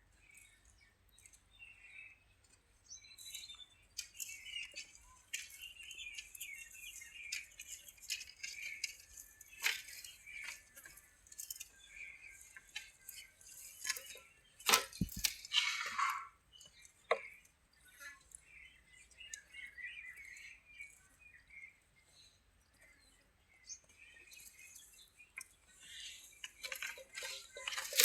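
Goats grazing: scattered clicks and crunches of grass being cropped and chewed, a cluster of louder ones about halfway through, with faint bird chirps behind.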